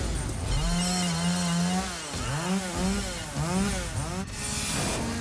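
Two-stroke chainsaw engine revving up and down over and over, its pitch rising and falling several times, held high for about a second near the start.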